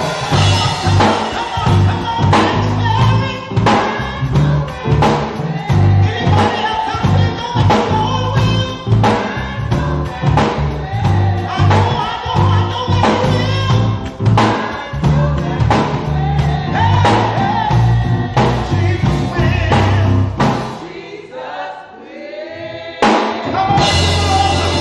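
A church praise band and choir performing gospel music, with drum kit, bass and voices. About 21 seconds in, the band drops out for about two seconds under a lone sung line, then comes back in.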